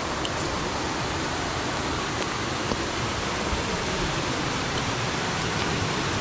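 Waterfall on a creek: a steady, even rush of falling water.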